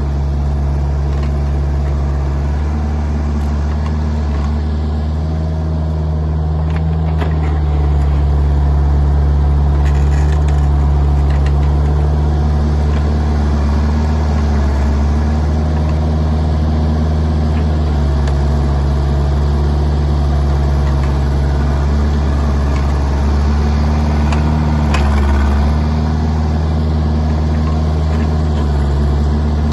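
Kubota mini excavator's diesel engine running steadily as it works, louder under load through the middle stretch, with a few light clicks.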